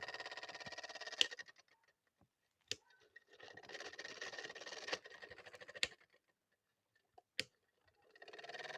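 Small motor of a homemade washing machine buzzing in three separate runs with a fast rattling pulse, each run ending with a sharp click, and single clicks in the gaps between.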